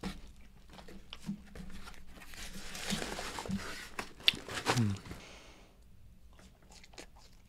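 A person chewing a french fry dipped in sauce close to the microphone: soft crunching and wet mouth sounds. A short falling hum comes about four and a half seconds in.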